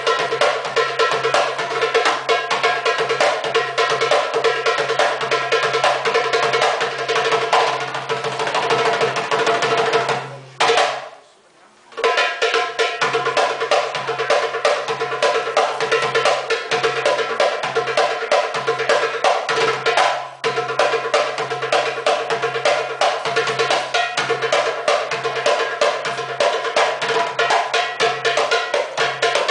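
Live darbuka (goblet drum) playing a fast rhythm of dense, rapid strokes and rolls. The drumming stops for about a second and a half around ten seconds in, then picks up again.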